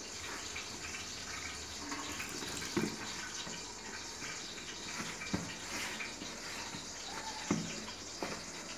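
Tap water running steadily into a stainless-steel sink, with a few short knocks as flour and water are mixed by hand into dough in a plastic tub.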